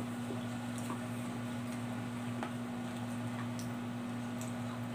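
A few faint, sparse clicks of a metal spoon in a plastic food tub while eating, over a steady low hum.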